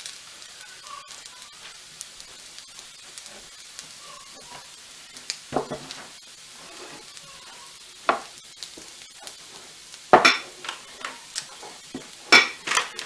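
Boneless buffalo chicken pieces sizzling in a non-stick frying pan as they are reheated, with a steady faint crackle. A few louder scrapes and knocks come as the pieces are stirred and turned, the loudest about ten seconds in and again near the end.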